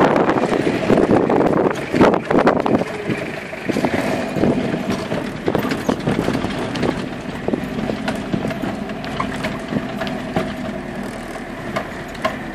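Off-road 4x4's engine running steadily as it crawls over a rough grassy track, heard from inside the cabin, with frequent knocks and rattles of the body over the bumps. Wind buffets the microphone for the first couple of seconds.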